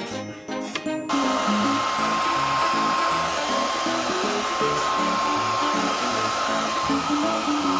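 Hair dryer switched on about a second in, then running with a steady hiss and a thin whine, blown onto a freshly thrown clay pot on a spinning pottery wheel to dry it. Plucked background music plays underneath.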